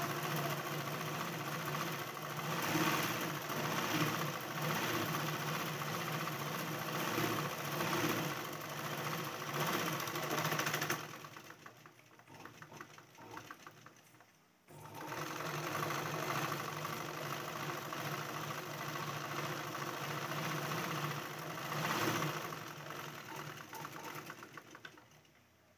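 Black domestic sewing machine running, stitching a cross-cut piping strip about a quarter inch in from its fold. It runs steadily, eases off and nearly stops about eleven seconds in, starts again around fifteen seconds, and slows to a stop near the end.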